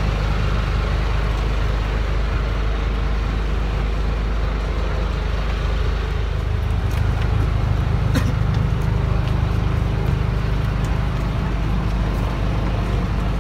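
A vehicle's engine running steadily, a low drone heard from on board.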